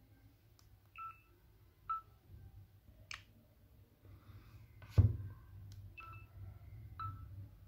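Redmi 8A Dual smartphone giving short electronic blips four times while taking front-camera shots. There are light taps between them and a louder handling thump about five seconds in.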